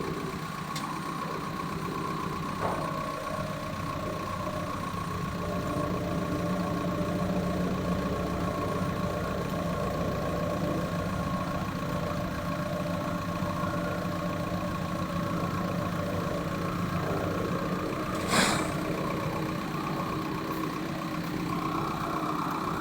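An engine idling steadily, with one brief sharp noise about eighteen seconds in.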